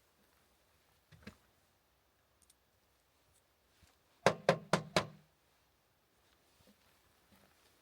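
A single faint knock, then a few seconds later four sharp knocks in quick succession, about four a second.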